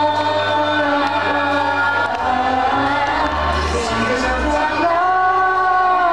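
Closing song: many voices singing together in long held notes over music with a bass line.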